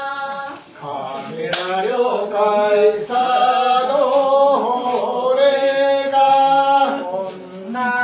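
Voices singing a slow, chant-like song in long held notes, with short breaks between phrases. There is a single sharp click or clap about one and a half seconds in.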